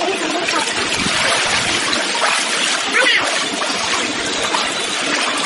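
Pool water splashing and sloshing as children wade and move about in it, with children's voices mixed in and a short high call about three seconds in.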